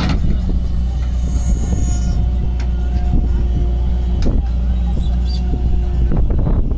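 Diesel tractor engines idling with a steady, heavy low drone. A couple of sharp knocks come through, one at the very start and one about four seconds in.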